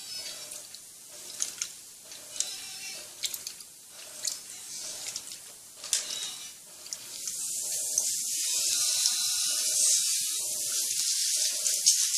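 Electrolux Turbo Economia top-load washing machine agitating a load of blankets at its high water level, water sloshing in repeated surges about once a second. About seven seconds in, a steady rush of running water rises and holds.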